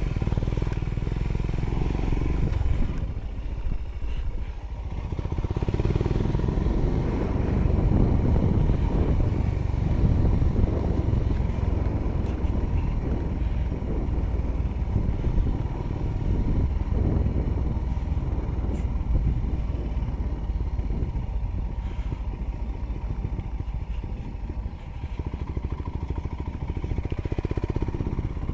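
Motorcycle running steadily under way, a continuous low rumble with no break.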